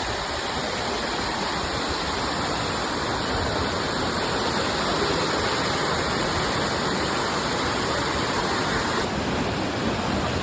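Rushing water, a steady full roar of falling or fast-flowing water such as a waterfall.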